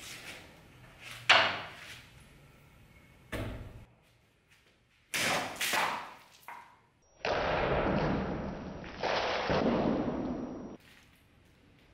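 A knife blade striking and slicing through a plastic water bottle on a wooden workbench: one sharp crack about a second in, the loudest sound, followed by a dull thud and several knocks and rattles. Past the middle comes about three and a half seconds of steady rushing hiss.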